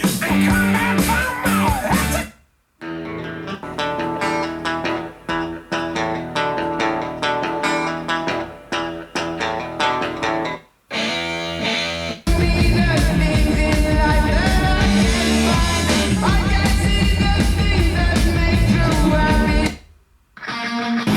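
Guitar-based music playing in several short excerpts, each cut off by a brief silence about two, eleven and twenty seconds in. The passage from about twelve seconds is louder and has a strong, steady bass beat.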